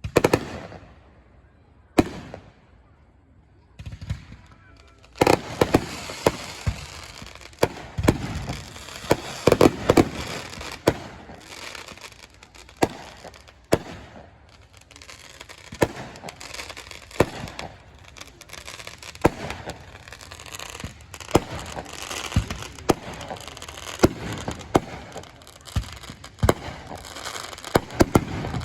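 Fireworks going off: a few separate sharp bangs over the first few seconds, then from about five seconds in a dense, continuous crackling with many sharp pops and bangs.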